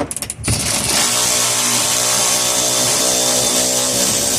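A power tool starts with a few quick clicks and then runs steadily at constant speed with a dense, hissy whine.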